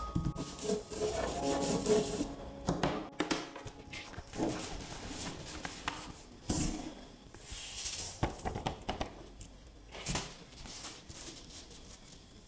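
Colored sand scraping and rustling on sticker paper: a plastic spoon rubs sand into the sticky area, then the sheet is lifted and tilted so the loose sand slides off. The sound comes as irregular swishes and light taps.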